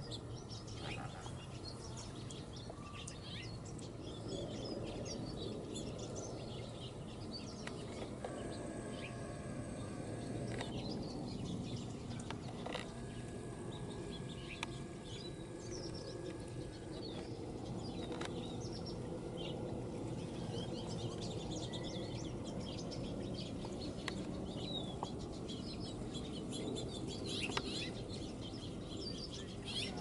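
Garden songbirds chirping and calling on and off, many short overlapping chirps, over a steady low background noise.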